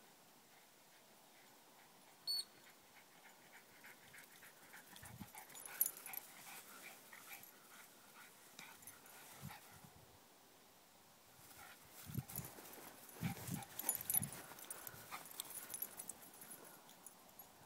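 Boston Terrier whimpering faintly during ball play, with one brief high squeak about two seconds in. A run of soft low thumps and clicks follows in the second half.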